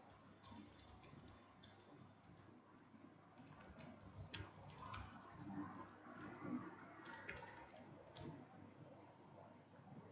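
Computer keyboard typing: faint, irregular keystrokes in short runs, as commands are typed into a router's command line.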